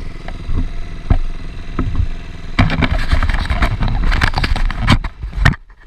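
Dirt bike engines idling, with a few knocks. From about halfway, a loud crackling, knocking noise covers them and cuts off suddenly near the end.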